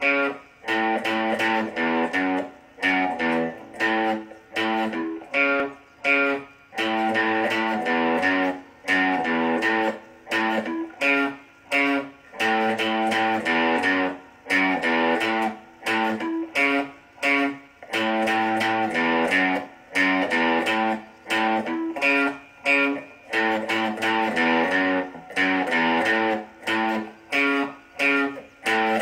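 Electric guitar played through an amp, strumming chords in short choppy bursts with frequent quick stops between them.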